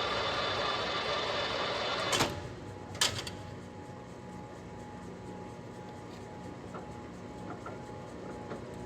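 Clausing engine lathe running with a steady geared whir, then two clunks about a second apart. After them the running sound drops away to a faint steady hum.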